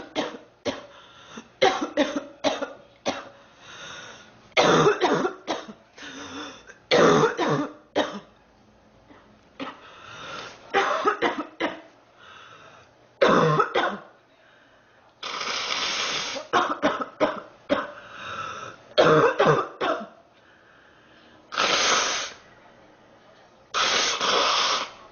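A sick young woman coughing in repeated fits: clusters of short, sharp coughs every few seconds, with a few longer coughing bursts in the second half.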